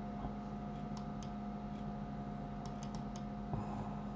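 Scattered light clicks from a computer mouse and keyboard: two about a second in, then a quick run of four near three seconds, followed by a soft thump. A steady electrical hum runs underneath.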